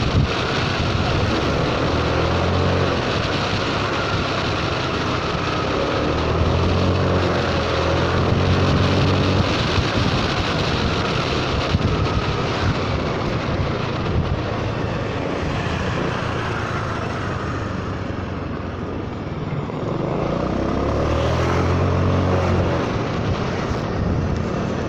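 Honda Forza 300 scooter's single-cylinder engine under way, its note rising and falling several times as the throttle is opened and eased, over a steady rush of wind and road noise on the microphone.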